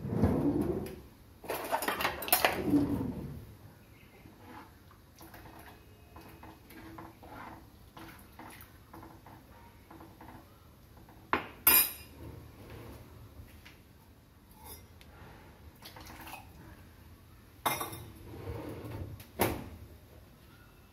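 Steel ladle knocking and scraping in a pan of liquid rasam as it is stirred. There is loud clattering in the first three seconds, then soft taps, with sharp metal clinks about eleven seconds in and again near the end.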